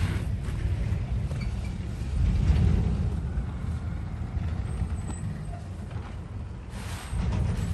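Sponge being squeezed and worked in a bucket of thick pine-cleaner solution: wet squelching and sloshing, with hissy bursts at the start and again near the end.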